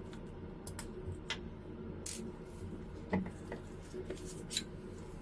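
A few light, scattered clicks and taps of small metal lens parts and tools being handled while a Canon EF 24-70mm f/2.8L USM zoom lens is taken apart, over a steady low hum.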